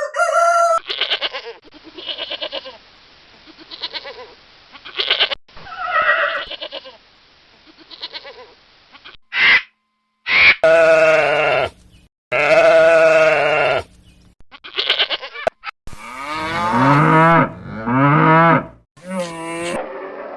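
Goats and sheep bleating: a series of separate calls, quieter and duller in the first half, then loud drawn-out bleats of about a second each, some with a wavering, quavering pitch, from several clips cut together.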